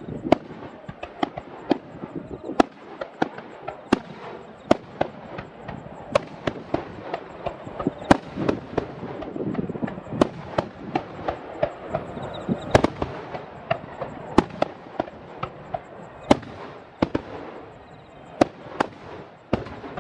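Aerial fireworks going off in rapid succession: dozens of sharp bangs at uneven spacing over continuous crackling, with the loudest bangs about 8 and 13 seconds in.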